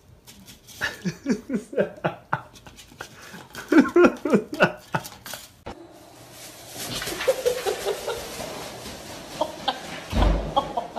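A person laughing in quick repeated bursts. After a cut, a plastic shopping bag rustling as a cat drags it along a carpeted floor, with a low thump about ten seconds in.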